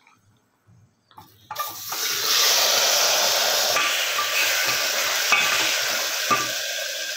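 Marinated mutton and onions hitting hot mustard oil in a pressure cooker, setting off a loud, steady sizzle about a second and a half in that slowly eases, with a few knocks of a spatula stirring it near the end.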